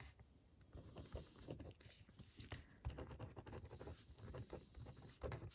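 Faint scratching of a gel pen writing on paper, with small irregular strokes and taps.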